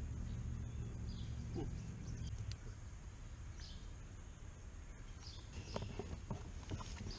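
Quiet outdoor ambience: a low steady hum that stops about two and a half seconds in, with a few faint bird chirps. Near the end come several light knocks as a fish is handled over the side of a kayak.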